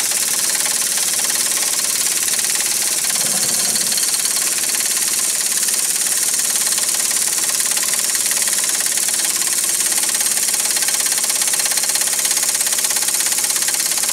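Impact wrench hammering continuously on a rusted, seized leaf-spring U-bolt nut under a Jeep Wrangler YJ's rear axle, fighting the nut down its thread.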